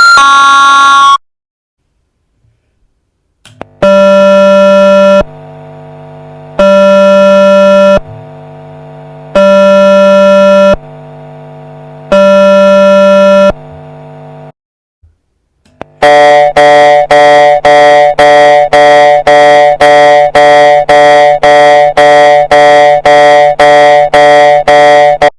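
Patlite electronic alarm unit playing loud, clipped alarm tones. A ping-pong chime ends about a second in. After a pause comes a 'boo-boo' buzzer that alternates a loud tone with a softer, lower one about every 1.3 seconds, four times. Near the end a 'kan-kan' tone like a railway crossing bell repeats about twice a second.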